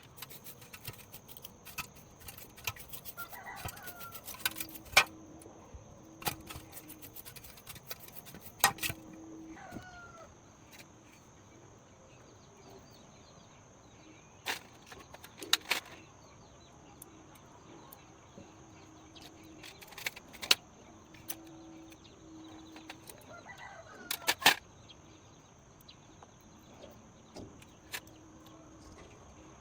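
Scattered sharp clicks and knocks, several in quick clusters, over a steady high, thin insect-like whine, with a few faint bird calls about three seconds in, around nine seconds and near twenty-four seconds.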